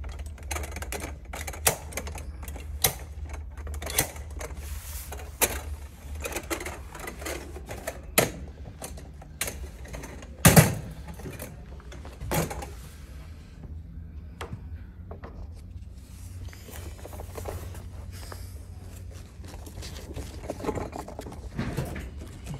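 Metal frame of a portable height-adjustable table clicking, rattling and knocking as it is assembled and adjusted by hand, with the loudest knock about ten seconds in. A steady low hum runs underneath.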